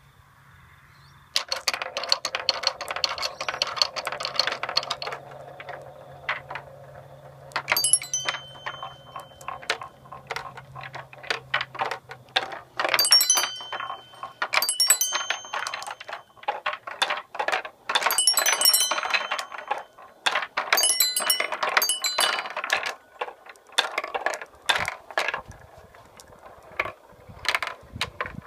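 Metal marbles rolling and clattering through a wooden marble machine: a steady rumble along the wooden tracks starts about a second and a half in, with many sharp clicks and knocks as balls drop onto and bump along wooden parts. Several times from about eight seconds in, the balls strike the metal chime plates, which ring out with bright tones.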